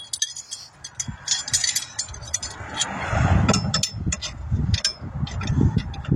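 Scattered light clinks and clatter of tools being handled, with wind buffeting the microphone as a low rumble from about three seconds in.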